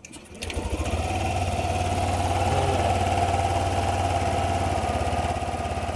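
Yamaha NMAX 155 V2 scooter's single-cylinder engine starting about half a second in and then running at a steady, very high idle, the fault tied to its idle air control (IAC) problem.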